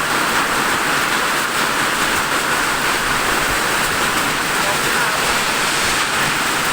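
Heavy rain falling in strong wind, a loud, steady, dense hiss.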